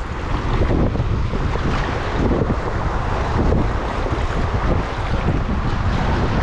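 Rushing river water under a kayak, with wind buffeting the microphone in uneven low gusts.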